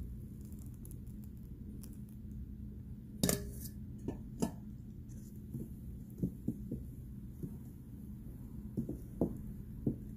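Wooden spoon beating thick bean batter in a metal bowl, with scattered knocks of the spoon against the bowl, the loudest a little over three seconds in, over a steady low hum.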